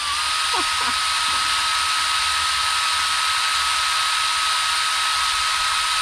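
Cordless drill running at a steady speed with a constant high whine, spinning a spool of string line mounted on its chuck.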